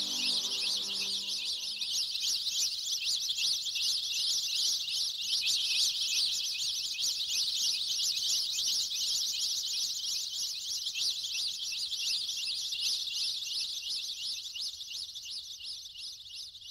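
Dense, continuous chorus of high-pitched chirping from a nature-sounds backing track, fading out near the end.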